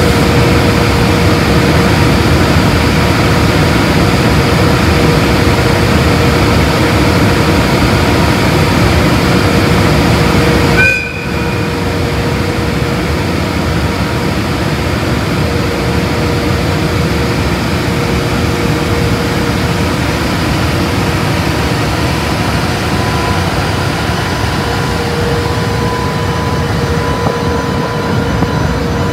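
EH500 electric locomotive's cooling blowers running loud and steady: a constant rushing noise with a steady hum and whine on top. About eleven seconds in there is a short high tone and a brief drop, after which the same steady blower sound continues a little quieter.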